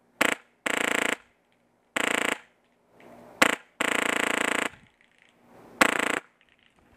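VFC VR16 HPA airsoft rifle with a Polar Star Fusion engine firing on full auto at about 30 rounds a second. It fires six short bursts, the longest nearly a second, with pauses between.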